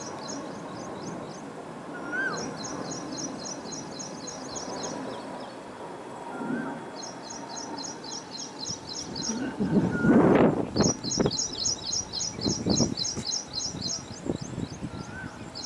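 Several birds calling: repeated bouts of rapid high-pitched chirping, a few short rising whistled notes, and louder harsh calls from about ten seconds in.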